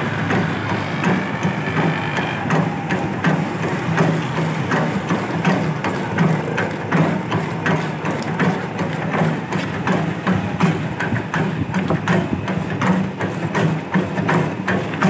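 Badam ragda grinding machine running: a motor-driven wooden pestle turns in a bowl of coarse almond paste, with a steady low hum and frequent irregular knocking and scraping as the pestle works the paste.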